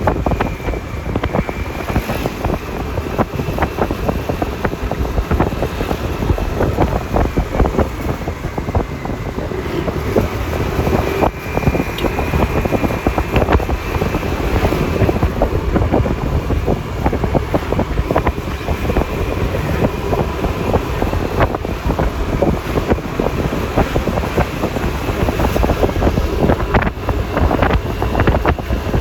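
Wind buffeting the microphone over the steady running of a Yamaha Lexi LX 155 scooter and the road noise of riding in traffic, with a faint wavering high whine.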